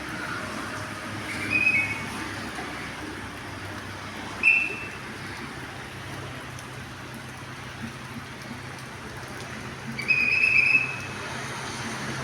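Sharp whistle blasts: a short one, a very brief one a few seconds later, then a longer blast near the end, over a steady low engine hum and background hiss.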